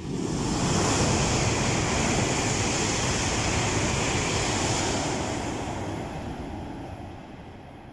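E2 series Shinkansen passing through a station at speed without stopping: a loud rushing noise that starts suddenly, holds for about five seconds, then fades away as the train recedes.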